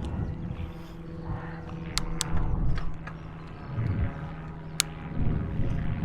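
Wind buffeting the microphone during a bicycle ride, over a steady low hum, with a few sharp clicks and rattles from the bike.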